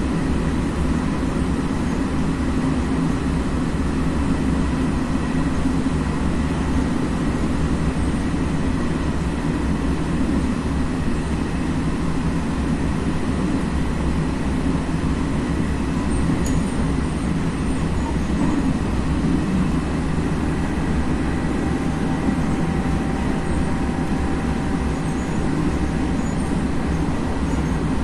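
Interior running noise of an FS ALe642 electric multiple unit in motion: a steady rumble of wheels on the rails, with faint steady high tones over it.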